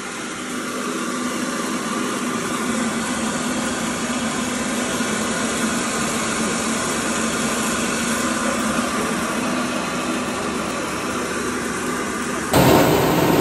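Small electric rice-milling machine running: a steady motor hum with the even hiss of milled rice sifting over its vibratory screen. Near the end the sound jumps abruptly to a louder machine noise.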